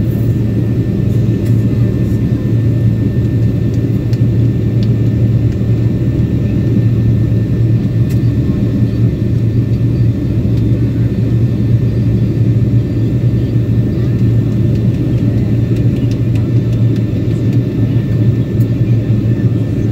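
Steady low rumble inside a jet airliner's cabin: jet engine and airflow noise during the descent toward landing.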